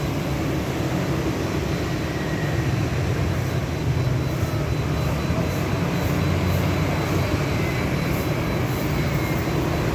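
Heavy road-works machinery engine running steadily with a low rumble.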